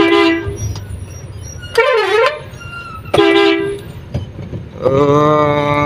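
Truck's basuri horn, a multi-tone musical air horn, sounded in four blasts. A short steady blast comes first, then a short warbling one, another short steady one, and finally a long steady blast that dips slightly in pitch before it ends. The honking urges a stopped vehicle ahead to turn left, since the sign allows turning left straight away.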